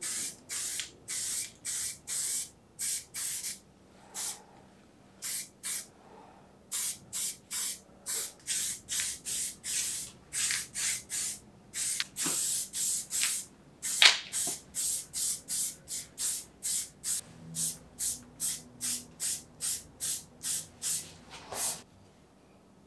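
Aerosol spray-paint can hissing in short, rapid bursts, roughly two a second, as paint is dusted onto a bicycle frame. The bursts thin out for a couple of seconds a few seconds in, then resume, and stop shortly before the end.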